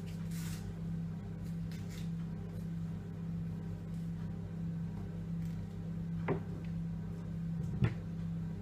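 Bananas being mashed in a mixing bowl: two sharp clicks of the utensil against the bowl about six and eight seconds in, over a steady low hum.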